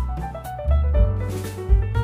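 Background music: a keyboard melody of stepping notes over a bass line and a drum beat.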